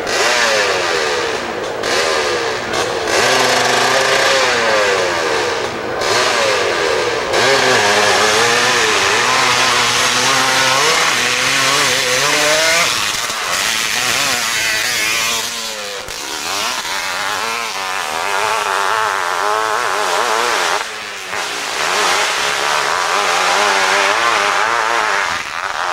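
Hillclimb motorcycle's engine revving hard under full load up a steep dirt hill, its pitch rising and falling over and over, with a few brief dips in level.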